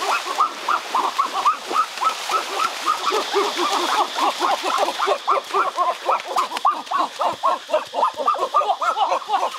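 Splashing through shallow stream water under a fast, unbroken run of short repeated calls, several a second; the splashing fades out about halfway through while the calls go on.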